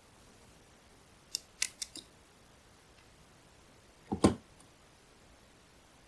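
Small metal parts clicking as a 3D printer's X-axis wheel bracket is unbolted and worked loose by hand: four quick light clicks, then one louder clack about four seconds in.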